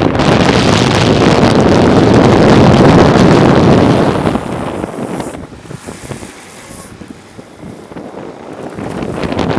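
Wind rushing over a fast-moving camera's microphone, mixed with road noise, while following a downhill longboarder. It is loud for about four seconds, drops away as the pace slows, and builds again near the end.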